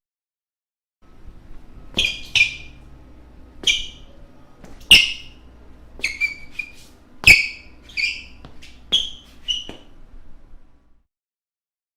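Basketball shoes squeaking on a floor: a quick irregular run of about a dozen short, sharp, high squeaks over some eight seconds, starting after a second of quiet and stopping near the end.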